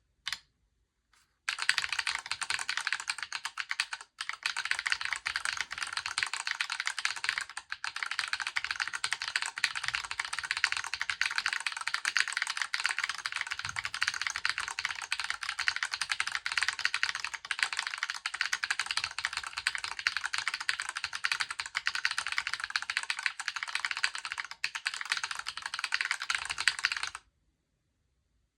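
Fast, continuous typing on a Moonlander Mark 1 split mechanical keyboard with Gateron Quinn tactile switches: a dense run of key clicks that starts about a second and a half in and stops suddenly near the end.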